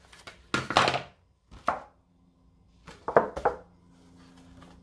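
Kitchen utensils knocking and tapping on a work surface while meat pies are cut and shaped: a cluster of knocks about half a second in, a single knock near two seconds, and another cluster around three seconds in.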